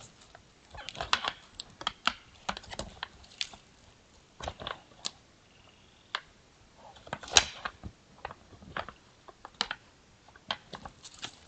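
Sambar deer stags sparring: antlers clacking and knocking together in an irregular run of sharp clicks, the loudest knock about halfway through.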